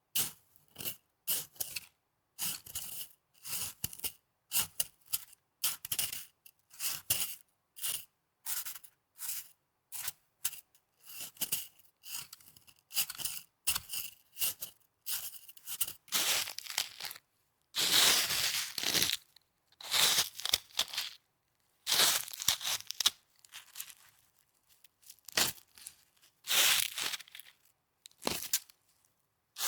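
Snow crunching close to the microphone in short separate bursts, about two a second at first. From about halfway in, the crunches become longer and louder, about a second each.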